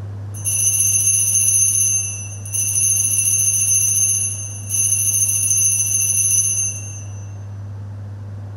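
Altar (Sanctus) bells rung in three shakes of about two seconds each, marking the elevation of the chalice at the consecration. A steady low hum runs underneath.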